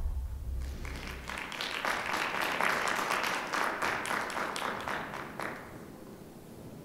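Audience applauding at the end of a stage act. The music's last low note dies away in the first second or so, the clapping builds to its peak about two to four seconds in, and it fades out near the end.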